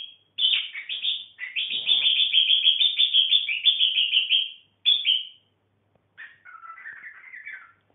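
Pet budgerigar calling: sharp, high chirps that run into a fast string of repeated chirps, several a second, then a softer, lower warbling chatter near the end.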